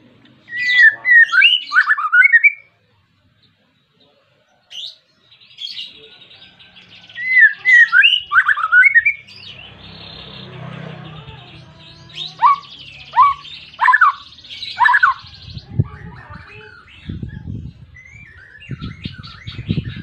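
Male white-rumped shama singing a loud, varied song. Phrases of rich sliding whistles alternate with buzzy rattles, with a run of four separate whistled slides about two-thirds of the way through. A few soft low thumps come near the end.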